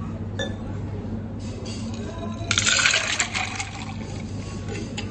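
Liquid poured in a short splashing burst about two and a half seconds in, lasting about a second.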